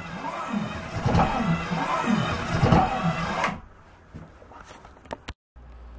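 3D-printed power hacksaw running, its blade sawing back and forth through a block of wood at about two strokes a second. It stops abruptly about three and a half seconds in, followed by a few faint clicks.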